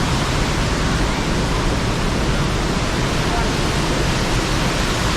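Steady, loud rushing noise without a break.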